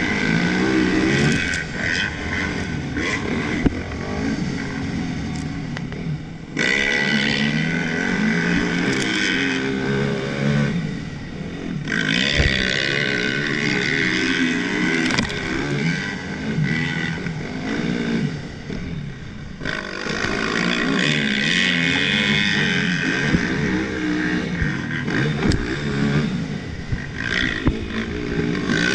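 Yamaha YZ450F's single-cylinder four-stroke engine revving up and down under hard riding on a dirt motocross track. The rider backs off the throttle briefly a few times before it picks up again.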